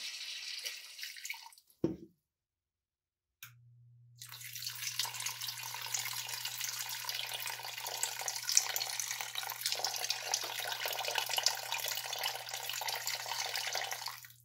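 Liquid being poured into a stainless steel pot of broth, splashing into the surface. A short pour at the start ends with a single thump about two seconds in, then after a brief gap a long steady pour runs from about four seconds in.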